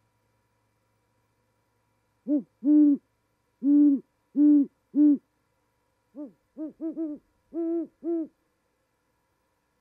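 A pair of great horned owls hooting in a duet: one owl gives five deep hoots, the middle three drawn out, and the other answers with a quicker run of about seven slightly higher hoots. The higher voice is the female's.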